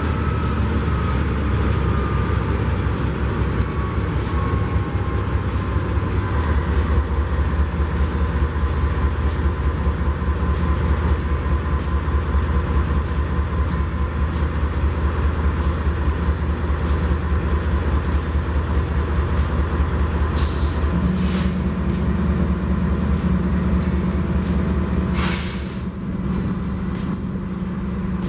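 EMD SD70ACe diesel-electric locomotive's 16-cylinder 710 engine running with a steady low drone, its note stepping up about a sixth of the way in and again near the end. A faint whine falls over the first few seconds. Short sharp air hisses come twice in the last third, then a longer hiss.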